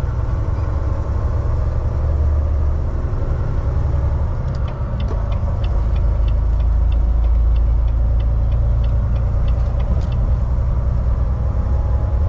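Inside the cab of a Volvo semi-truck at highway speed: the diesel engine and road noise make a steady low rumble. For several seconds in the middle, light, evenly spaced clicks sound about three times a second.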